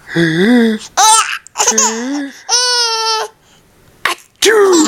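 A baby laughs in short bursts, with a long high-pitched squeal about halfway through. An adult voice makes drawn-out 'ahh' sneeze build-up sounds near the start.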